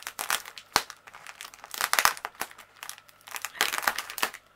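Plastic packaging bags crinkling and rustling as they are handled, in quick irregular spells with a brief lull partway through.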